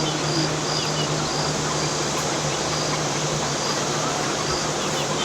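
Steady hiss with a low hum underneath, and a short high chirp repeating about twice a second, fading out near the end, with faint chicken calls.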